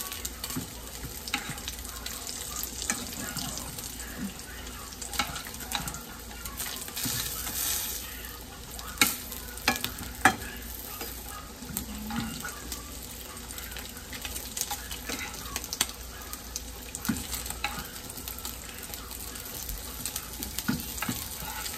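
Cut-up bacon sizzling in its grease in a frying pan, with sharp clicks of a metal fork against the pan as pieces are lifted out; the loudest clicks come about nine and ten seconds in.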